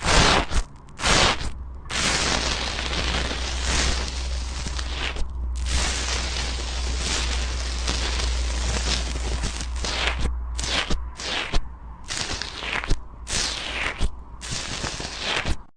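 Slime being squeezed and worked close to the microphone: a dense run of crackling and popping, breaking into shorter bursts with brief gaps in the second half.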